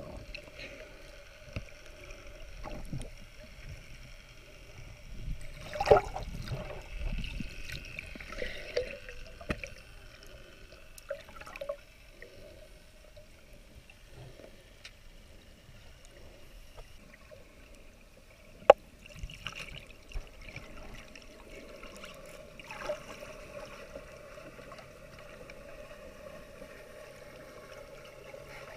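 Muffled underwater sound heard through a GoPro's waterproof housing: water sloshing and gurgling over a steady hum. There are scattered knocks, a louder burst about six seconds in and a single sharp click about two-thirds of the way through.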